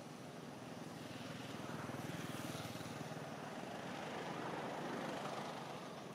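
A motor vehicle's engine passing by: it grows louder over a few seconds, then fades near the end.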